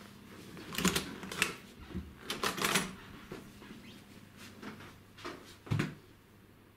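Handling and movement noise from a handheld camera: a scatter of sharp clicks and light knocks, bunched about a second in and again around two and a half seconds, with a duller thump near the end.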